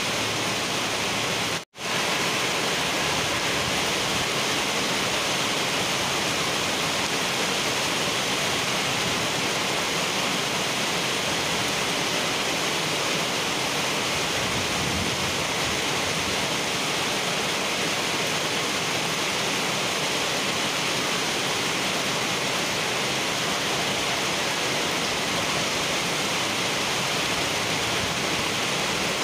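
Heavy rain pouring steadily onto wet pavement and splashing into standing water, an even hiss without lulls. It cuts out for a split second about two seconds in, then carries on.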